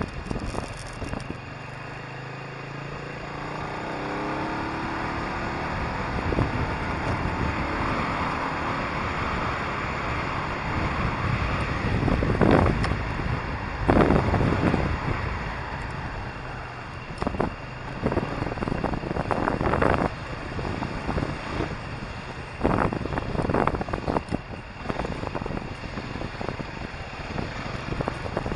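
Motorcycle riding through traffic: the engine's pitch rises a few seconds in as the bike speeds up, under steady wind noise. From about the middle on, the wind buffets the microphone in repeated short loud gusts.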